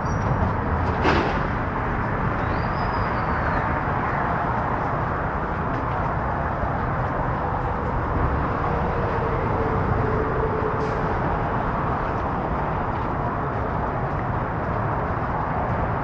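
Steady rumble of passing road traffic, with a sharp click about a second in.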